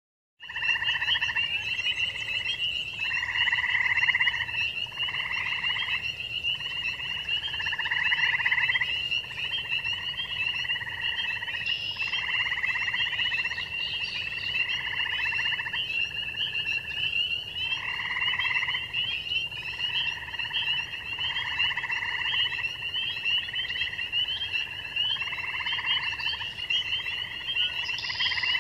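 A dense spring marsh frog chorus: spring peepers making a steady, high, unbroken peeping, with western chorus frogs' pulsing trills of about a second each repeating over it again and again.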